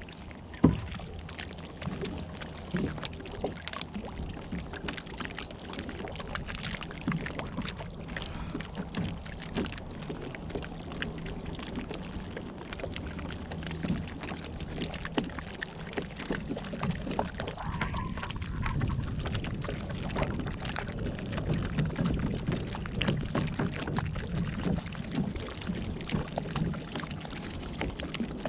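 Water splashing and churning around a pedal-driven waterbike as it moves through the water, with a sharp knock just under a second in.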